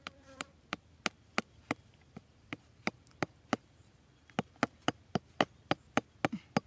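Hoe blade chopping into turf and soil: about twenty short, sharp strikes, roughly three a second, with a brief pause just past the middle.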